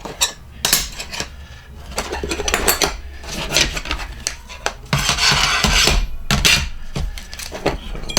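Small metal CNC kit parts (brackets, plates and spacers) clinking and clattering against each other as they are handled, with a longer scraping rustle about five seconds in.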